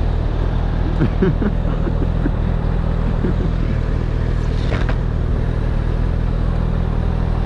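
Honda CBR1000RR's inline-four engine idling steadily while the bike waits at a stop, with a brief sharp tick a little past the middle.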